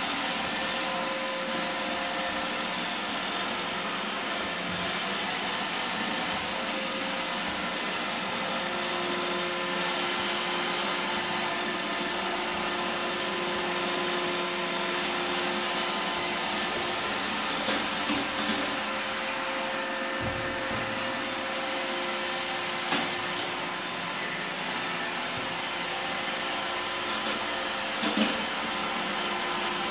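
Roomba 886 robot vacuum running steadily, its motor and brushes giving a constant whooshing hum with a faint whine, while it picks up plasterboard ceiling debris. A few sharp clicks or knocks come in the second half.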